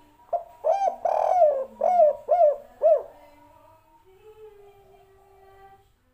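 Spotted dove cooing one phrase: a couple of short notes, a longer drawn-out note, then three short notes, the 'kuk 3' ending that keepers prize, over in about three seconds.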